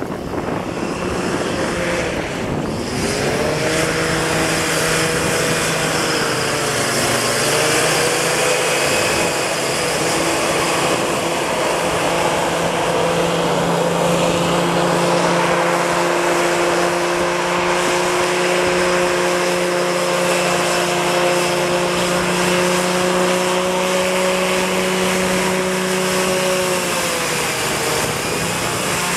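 ATASD prototype amphibious trimaran (hovercraft–airboat hybrid) running at speed on water: its engine and ducted propeller fan make a loud, steady drone over the hiss of spray. The pitch dips briefly and recovers a few times.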